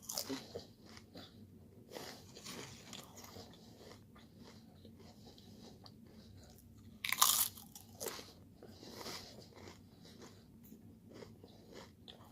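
Close-up bites into nacho cheese Doritos tortilla chips: a loud crunch at the start and another about seven seconds in, with crunchy chewing between.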